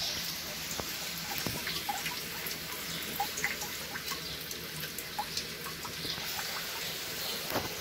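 Water trickling and dripping in a fish-breeding pond: a steady hiss with scattered small drips.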